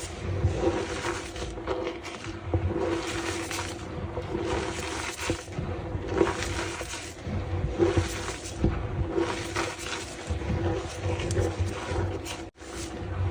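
Reformed block of gym chalk being squeezed and crushed by hand, a squeaky crunch about once a second. The sound drops out for an instant near the end.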